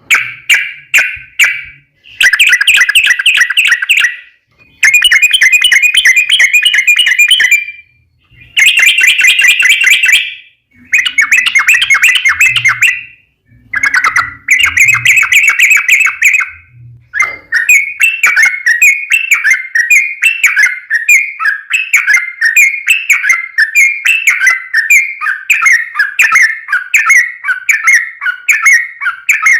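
Yellow-vented bulbul (trucukan) singing: loud bubbly chattering phrases of a couple of seconds each with short pauses, then from about 17 seconds in a long unbroken run of quick repeated notes, its long rolling song.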